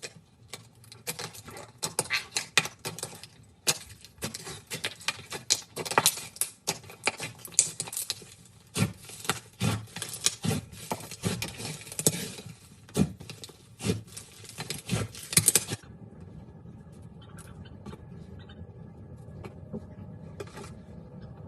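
Slime being squeezed and worked by hand, giving rapid crisp crackles and clicks that stop suddenly about 16 seconds in, after which only a faint steady hum remains.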